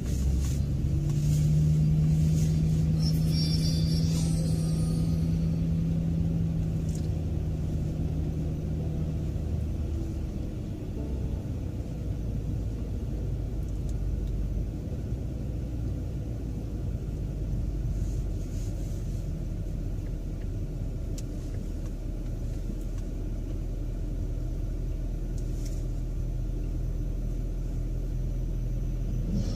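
Car engine and road noise heard from inside the cabin while driving. A steady engine hum stands out for the first ten seconds or so, then settles into a lower, even rumble.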